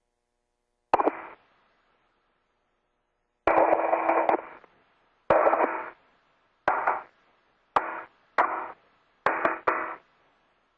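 Spacewalk radio loop keying open and shut without speech: eight short bursts of static, each starting with a click, the longest about a second.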